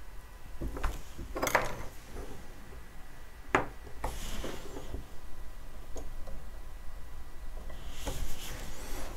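Small hand tools and wooden model parts handled on a hobby workbench: a few sharp clicks and taps, with brief rustling about four seconds in and again near the end.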